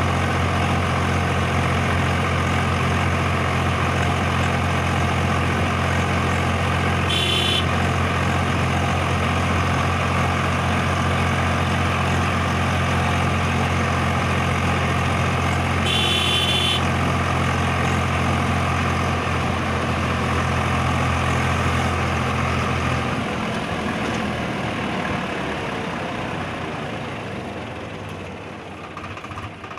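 Swaraj 735 XT tractor's three-cylinder diesel engine running steadily while pulling a loaded trolley, heard from the driver's seat. About 23 seconds in the steady engine note stops and the sound fades. Two short high-pitched toots come through, about 7 and 16 seconds in.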